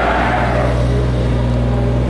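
Mini excavator's diesel engine running as it passes, a steady low drone, with noise from its crawler tracks.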